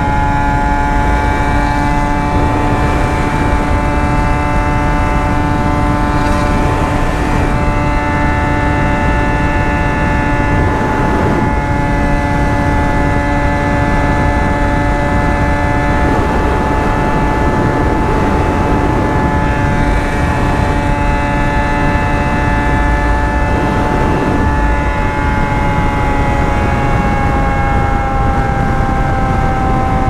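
Yamaha FZ6 Fazer 600's inline-four with a straight-piped exhaust, holding a steady cruising note at highway speed over a heavy rush of wind on the microphone. The engine note eases slowly down near the end.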